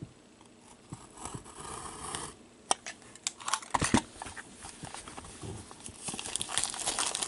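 Hands opening a box of trading cards and its foil packs: scattered cardboard clicks and taps, the sharpest about three to four seconds in, then crinkling and tearing of a pack wrapper building toward the end.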